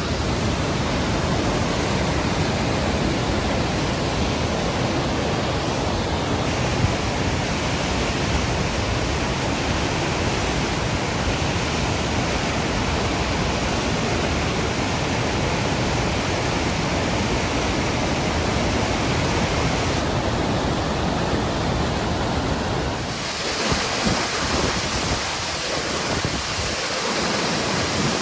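Steady roar of a tall waterfall in spate, Pistyll Rhaeadr, falling water heavy after rain. Near the end the roar thins to a hiss with wind gusting on the microphone.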